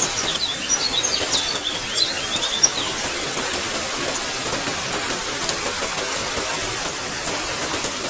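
Steady rain hissing, with birds chirping repeatedly during the first three seconds.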